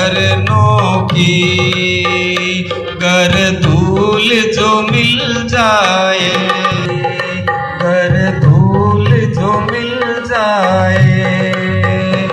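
Background music: a melody that slides in pitch over steady hand-drum percussion.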